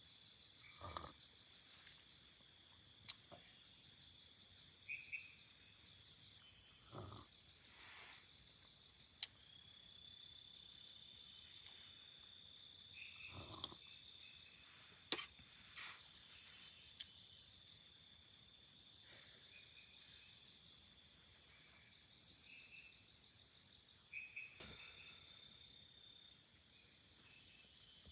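Night insects chirring in a steady, high, fast-pulsing trill, with occasional short chirps and a few scattered sharp clicks and soft knocks.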